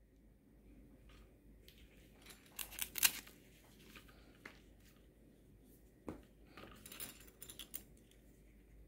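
Hands handling nylon exercise-band straps and their metal clips: rustling of the webbing and small metal clicks as a snap hook is worked onto a ring, with a louder rasp about three seconds in and a quick run of clicks near the end.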